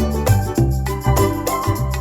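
Background music with a steady beat: bass notes and keyboard or organ-like tones, with a jingling sound.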